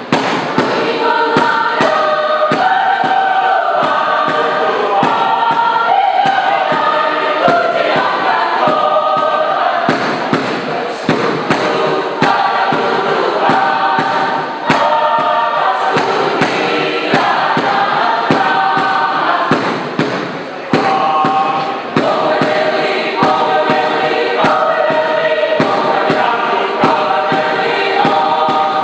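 Mixed choir of young men and women singing in parts, with a run of short percussive thumps beating beneath the voices. This is most likely their Alor folk offering song.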